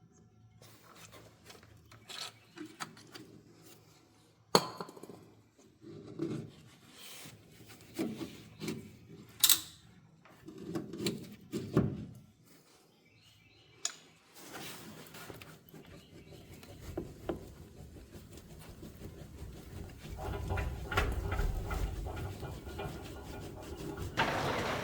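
Hand work with parts and tools: scattered knocks, clatter and short scraping or rubbing sounds, then a steady noise that builds up over the last several seconds.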